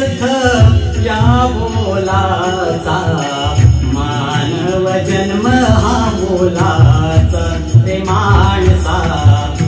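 A man singing a Marathi devotional-style social-awakening song over a backing track with a rhythmic drum beat.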